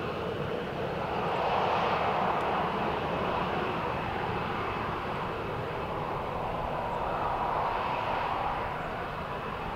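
Jet airliner's engines running, a steady rushing noise with a faint whine on top that swells a little about two seconds in and again near the end.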